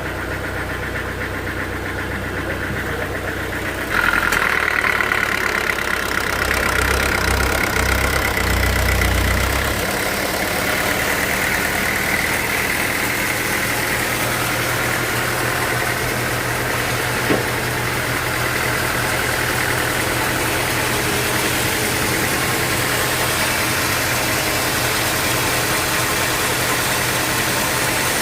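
Sawmill machinery running steadily with an engine-like drone. About four seconds in it gets louder and a high whine joins, easing off over the following seconds.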